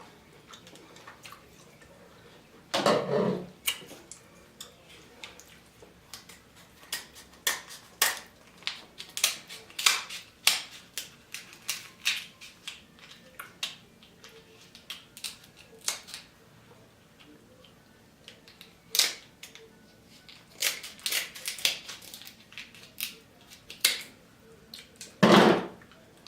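Close-up eating of a seafood boil: crab and crawfish shells being cracked and picked apart, with chewing and lip-smacking, heard as a stream of sharp clicks and cracks. Two louder, longer mouth sounds stand out, about three seconds in and near the end.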